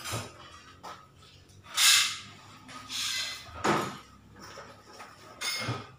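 Several short, noisy swishes and rips, the loudest about two seconds in, as reflective sticker film (3M HiP) for the sign's letters is peeled from its backing and handled.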